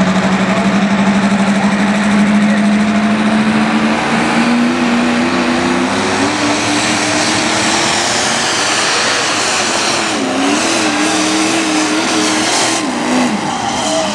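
The engine of a 2,050 lb mini modified pulling tractor running loud under load as it drags a weight-transfer sled. Its pitch holds steady at first, climbs from about four seconds in, wavers, and drops briefly near the end.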